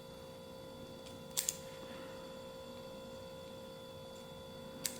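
Small metal pistol parts clicking as a Sig P320 fire control unit is handled: a quick double click about a second and a half in and a single click near the end, over a faint steady electrical hum.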